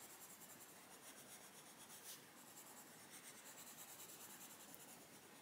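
Castle Arts Pasteltint coloured pencil shading on a colouring-book page: faint, steady scratching of quick back-and-forth strokes.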